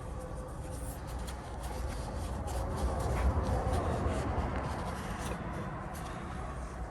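Hands working on automatic transmission parts: rubbing and shuffling with scattered light clicks.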